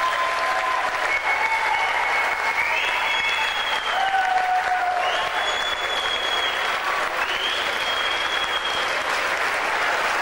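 Crowd applauding steadily, with long held cheers rising over the clapping every second or two.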